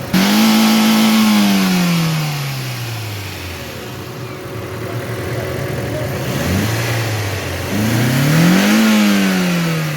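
2007 Toyota Corolla GLI's four-cylinder petrol engine revved twice, each time rising quickly and then sinking back toward idle over a few seconds, with a short blip between. It runs evenly, its misfire cured by a new genuine Toyota ignition coil.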